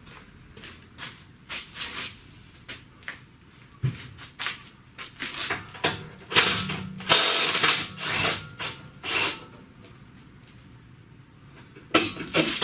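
Cordless impact wrench run in several short, uneven bursts on a nut, weak because its battery is nearly drained, with clicks of the tool between bursts.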